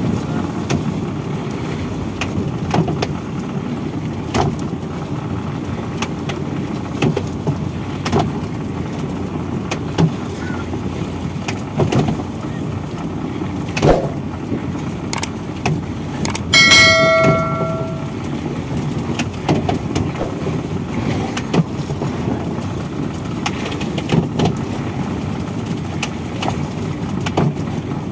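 Fishing boat's engine running steadily, driving a deck winch that winds in rope, with irregular knocks and clicks. About 17 seconds in, a metallic ringing tone sounds for a second or so.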